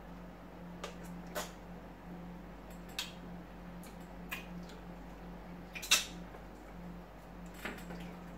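Eating sounds of people eating fufu and okra soup by hand: about six short, sharp clicks and smacks, the loudest about six seconds in, over a steady low hum.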